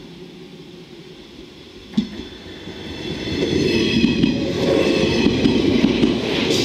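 JNR 381 series limited express electric train passing close by on snow-covered track: its rumble builds from about three seconds in, with several steady high ringing tones above it. A single sharp knock comes about two seconds in, before the rumble builds.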